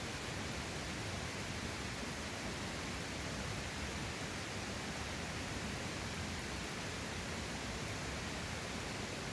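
Steady, even rushing of a mountain valley stream, unchanging throughout.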